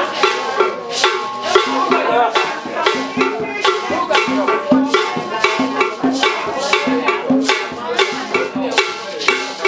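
Music with a steady, fast percussion beat and short low notes repeating under it.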